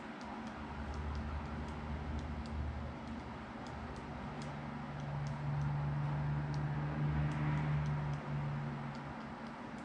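Smartphone on-screen keyboard clicking as thumbs type, light irregular ticks a few per second, over a low steady hum that swells for a few seconds midway.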